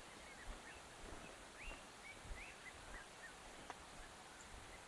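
Faint birdsong: many short chirps and whistled notes from wild birds, with soft footsteps of a hiker walking on a dirt path and a single sharp click near the end.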